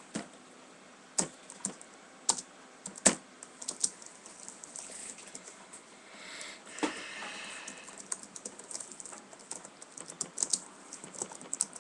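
Typing on a computer keyboard: a few scattered keystrokes in the first four seconds, then a quick run of keystrokes over the last few seconds. There is a brief soft rustling noise about six to seven seconds in.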